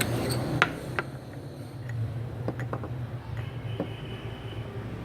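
A bottle rolled back and forth over a slab of slime, giving scattered light clicks and soft knocks, over a steady low hum.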